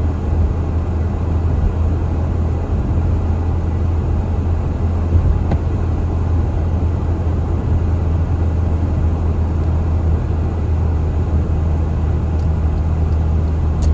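Steady low rumble of a car driving on a wet, snowy road, heard from inside the cabin: tyre and engine noise with no marked changes.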